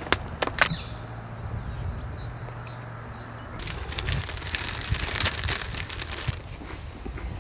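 Plastic packaging crinkling: a couple of sharp crinkles from a snack packet at the start, then a clear zip-top bag of saltine crackers rustling and crackling steadily as a hand digs into it, from about three and a half seconds in.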